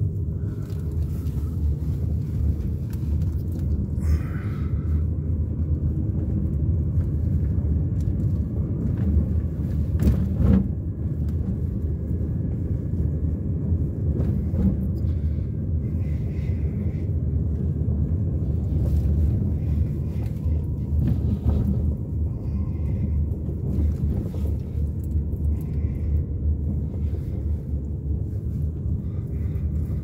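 Steady low rumble of a car driving slowly on a paved road, heard inside the cabin: engine and tyre noise, with a brief knock about ten seconds in.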